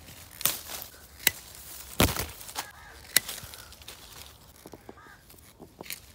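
Hand pruning shears (secateurs) snipping through sweet lime tree branches: four sharp snips in the first three seconds, then a few lighter clicks, with leaves rustling.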